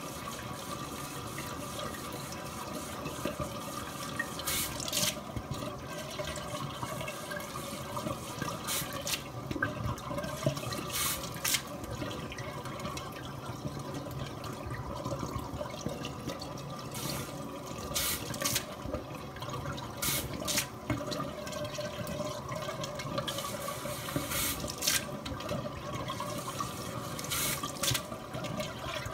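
Bidet tap running in a steady stream into the bowl, with brief splashes every few seconds as cats paw at the water.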